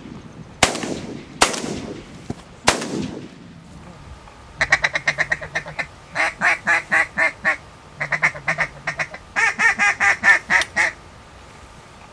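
Three shotgun shots in the first three seconds, each with a fading echo. Then a duck call is blown in four runs of rapid, evenly paced quacks.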